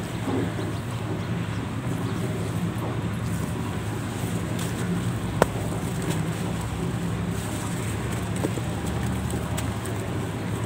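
A lump of powdery soil crumbled between the hands, grains and dust trickling and crunching softly, over a steady low background rumble. One sharp click about five and a half seconds in.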